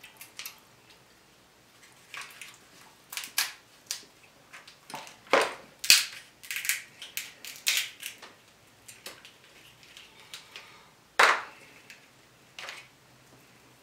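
King crab shell being cracked and snapped apart by hand: a string of sharp, irregular cracks and crunches, the loudest about six seconds in and another near the end.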